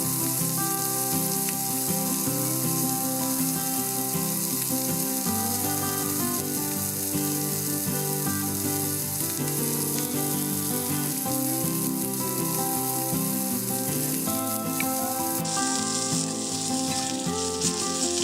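Fish frying in oil in a pan, a steady sizzle that turns suddenly louder near the end, with background music playing over it.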